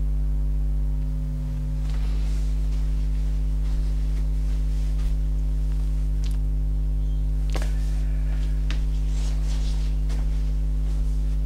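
Steady low electrical mains hum with a stack of overtones, unchanging throughout, with a few faint rustles and ticks from handling the camera.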